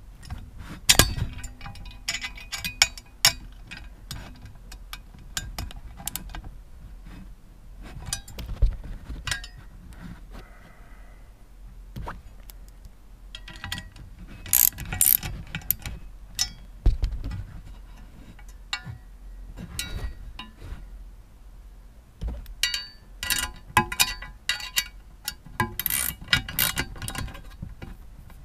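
Ratchet wrench clicking in runs, with short pauses between them, as the bolts holding a dead pedal to the footwell are tightened.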